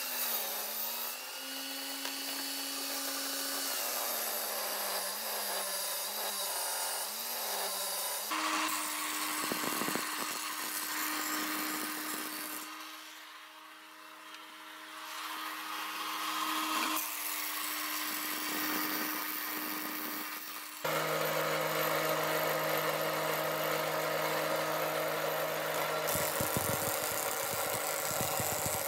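Woodworking machines running, in a string of short cuts with a steady motor hum. About 21 seconds in, the loudest part begins: a wood planing machine runs steadily while a board feeds through it.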